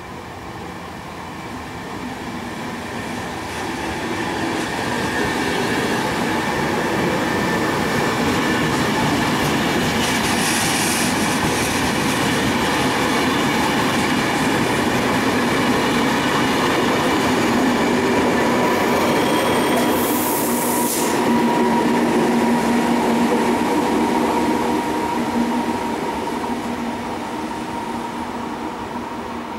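Regional push-pull train of coaches with an E464 electric locomotive at the rear arriving at the platform, growing louder as it comes in, wheels clattering over the rails and squealing steadily. A brief high hiss sounds twice, about a third and two thirds of the way through, and the sound eases off as the locomotive passes near the end.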